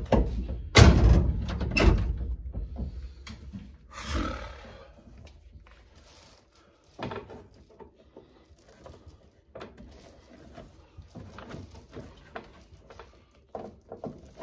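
Several hard thumps and knocks close together, then a short rustling burst, then scattered light clicks and taps.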